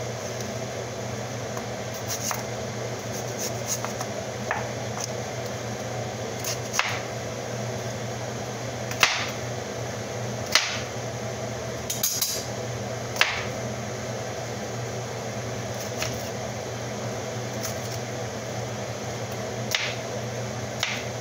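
A kitchen knife chopping tomatoes on a plastic cutting board: irregular sharp knocks of the blade striking the board, one every second or two, over a steady low hum.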